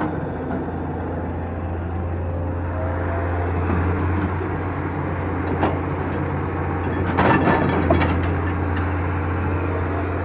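Kato HD700VII crawler excavator's diesel engine running steadily. About seven seconds in there is a burst of clattering thuds as the bucket dumps its soil into the tipper truck's steel bed.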